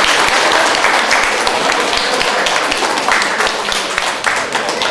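Audience applauding: many people clapping together, thinning out a little near the end.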